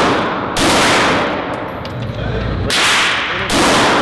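Semi-automatic pistol fired four times, in two quick pairs about two seconds apart. Each shot rings on in the echo of an indoor range.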